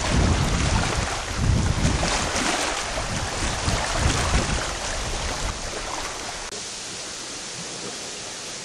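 Strong wind buffeting the microphone over choppy lake water, with a steady rushing hiss of wind and waves. About six and a half seconds in the gusts stop and only a quieter, even hiss remains.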